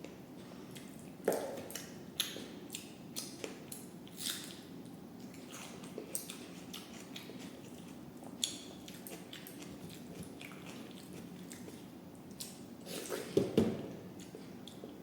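A person eating rice with lentil dal: wet, squishy smacks of mouthfuls being chewed and of food being handled, as short scattered clicks, with a louder cluster near the end.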